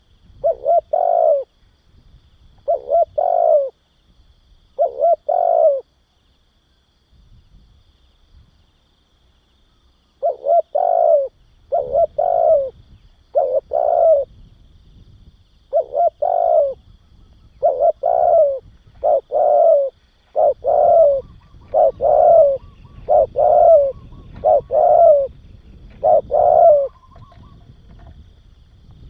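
Spotted dove cooing: short two-part coo phrases repeated, four in the first few seconds, then after a pause of about four seconds a long run of about fifteen, roughly one a second.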